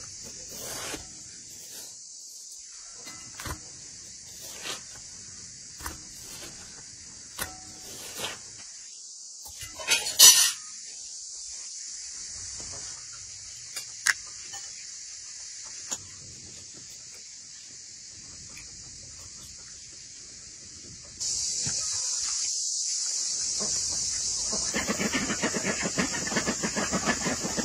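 Light clicks and knocks of a knife and plates as watermelon is cut and eaten, over a steady high hiss, with a louder clatter about ten seconds in. In the last few seconds a denser rustling, scratching noise.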